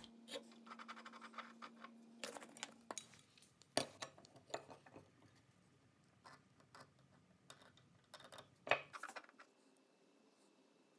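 Faint scattered clicks and light scratching of small metal hand tools being handled on a wooden workbench: a layout-fluid brush and bottle, a scriber on a combination square, and a dial caliper. Two sharper clicks stand out, about 4 seconds in and near the end.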